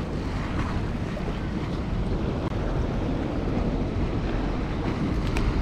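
Steady wind buffeting the microphone over the wash of sea waves, with a faint tick near the end.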